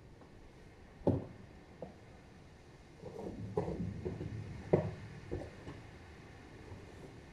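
Snow shovel knocking and scraping on the ground: a sharp knock about a second in, then a run of scrapes and knocks in the middle, the loudest near five seconds.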